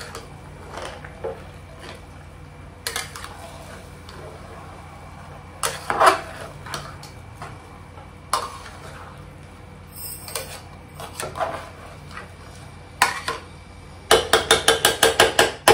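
Metal spoon stirring rice and chicken in a pressure cooker pot, with scattered scrapes and clinks against the pot, then a quick run of about eight sharp clinks near the end.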